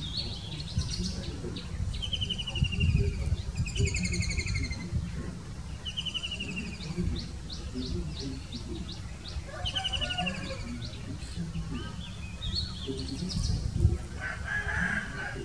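White-throated kingfisher calling: four loud, falling, rattling trills a couple of seconds apart, with runs of quick, sharp single notes in between.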